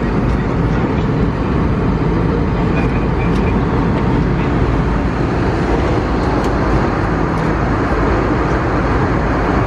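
Steady cabin roar of an Airbus A320neo airliner in cruise: an even, deep rushing of engine and airflow noise that holds at one level throughout.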